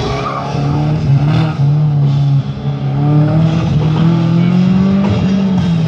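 Car engine held at high revs as the car is driven hard through a cone course. Its pitch climbs slowly, then falls away near the end.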